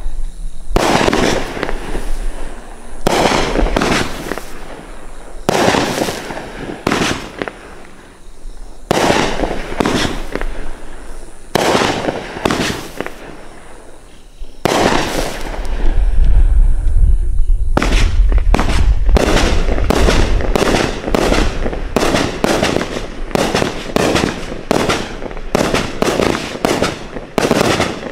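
Winda 'Fish Tank' 500-gram consumer firework cake firing. For the first half, jellyfish shells go off as well-spaced bangs a second or two apart. From about eighteen seconds in comes a rapid volley of gold brocade shots, about two bangs a second.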